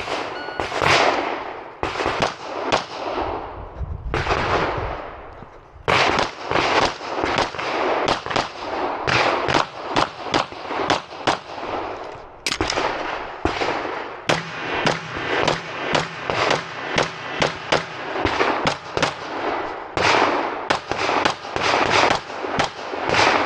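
Pistol shots in quick, irregular strings, with a few spaced shots at first and a dense run from about six seconds in. Each shot has a short echo.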